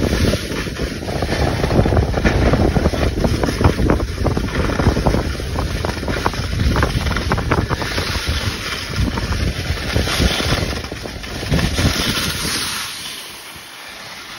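Wind rushing over the microphone and skis scraping and chattering across packed snow during a downhill ski run. The noise drops away sharply near the end as the skier comes to a stop.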